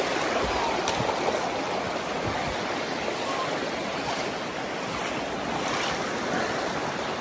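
Fast-flowing floodwater in a swollen creek, rushing and churning steadily.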